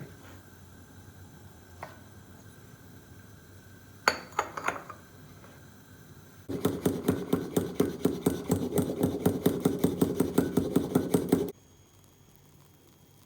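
A short clatter of kitchen utensils, then a utensil worked rapidly back and forth in a container, about six strokes a second for some five seconds, stopping abruptly.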